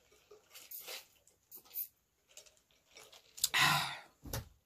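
A few short sips through a drinking straw, then a loud breathy sigh about three and a half seconds in, followed by a short soft knock.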